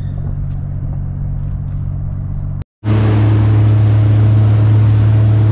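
Steady road noise and engine hum inside a moving car. After a sudden cut about two and a half seconds in, a boat engine running steadily at speed, louder, with a rushing hiss from the wake and wind.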